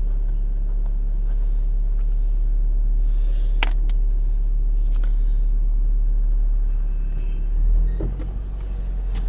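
First-generation Scion xB's four-cylinder engine idling steadily, with a couple of sharp clicks in the middle.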